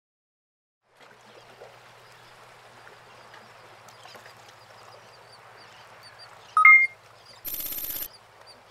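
Faint outdoor background noise with a low steady hum, broken near the end by a short, loud two-note tone, lower then higher, and then half a second of buzzing noise.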